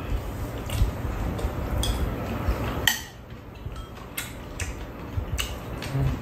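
Metal spoons and chopsticks clinking and scraping against bowls during a meal, in scattered light clicks, the sharpest about three seconds in.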